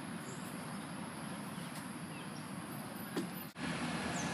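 Steady outdoor background noise, a rushing haze without distinct events. It drops out for a moment about three and a half seconds in and comes back a little louder.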